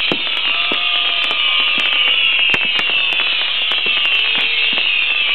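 Fireworks fixed to a fire dragon going off together: a dense high whistling hiss that keeps sliding down in pitch, over constant crackling pops.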